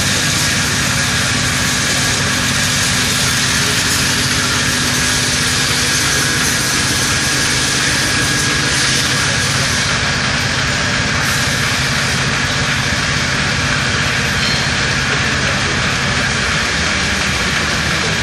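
CNC gear shaping machine running: a loud, steady mechanical noise with a constant hum, whose lower hum drops away near the end.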